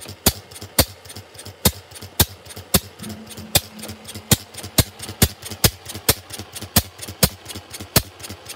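One-third scale Robinson hot-tube-ignition oil engine replica running on paraffin: sharp firing beats about two a second, slightly uneven, with lighter ticks between them.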